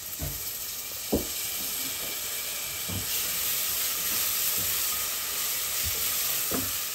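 Raw rice and onion sizzling in hot oil, with garlic just added, as the rice is fried before the water goes in. It is a steady hiss that grows a little stronger about halfway through, with a few short knocks.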